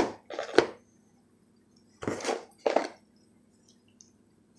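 Baseball cards being handled and shuffled: a few short scrapes and a click at the start, then two more scrapes about two seconds in.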